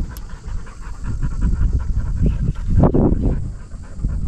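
A dog panting rapidly, over a low rumble, with a louder burst of low noise about three seconds in.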